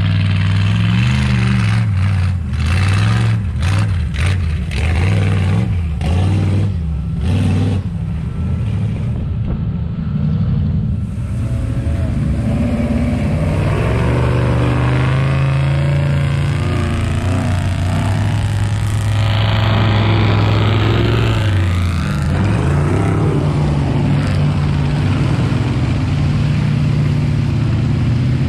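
Off-road 4x4 truck engine revving and running under load, its pitch rising and falling, then holding steady for several seconds in the middle before wavering again.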